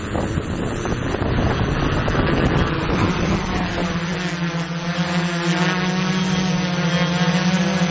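Strong wind buffeting the microphone, then from about three seconds in a small camera drone's propellers join with a steady, even hum over the wind.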